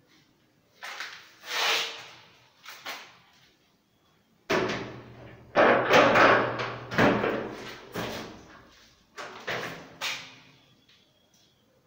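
HDF-board kitchen cabinet doors being opened and shut: a string of sharp wooden knocks and bangs, with a longer, louder run of them in the middle.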